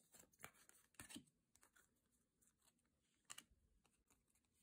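Near silence, with a few faint clicks and rustles of trading cards being handled and slid past one another.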